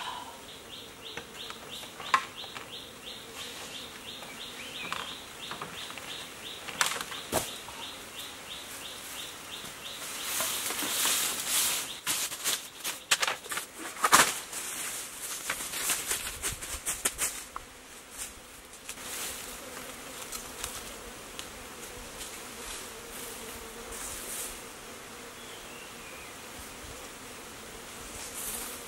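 Dry bamboo and dry leaf litter rustling and scraping as a long bamboo pole is handled and dragged over the ground, loudest in the middle, with several sharp knocks of bamboo on bamboo. A rapid, high ticking chirp, about four a second, runs through the first several seconds.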